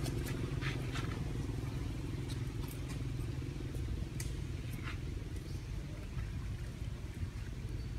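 A steady low engine rumble, with a few faint clicks over it.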